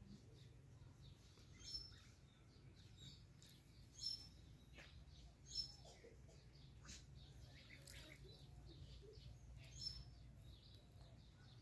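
Faint, short, high bird chirps, a handful spread through, the clearest four standing out above a low steady hum.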